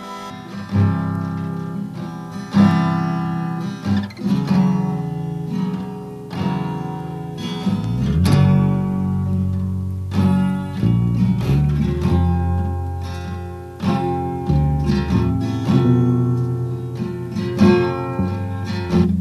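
Acoustic guitar strumming chords with a steady low bass line: the instrumental introduction of a song, before the vocals come in.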